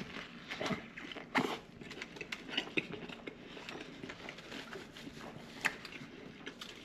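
Close-miked chewing of a chicken and lamb gyro: irregular wet mouth smacks and clicks, the loudest about a second and a half in and again late on.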